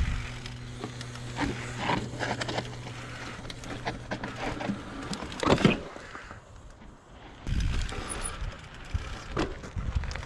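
Mountain bike riding down a dirt trail: tyres on dirt with the chain and bike rattling, and a steady buzz through the first half. A loud clatter comes about five and a half seconds in, then wind rumbles on the microphone.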